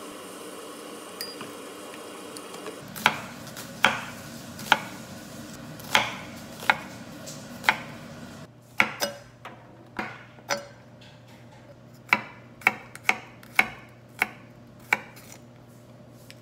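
Kitchen knife slicing an onion on a wooden cutting board: a run of sharp knocks, one or two a second, as the blade strikes the board. Before the knocks begin, about three seconds in, there is a steady low hiss.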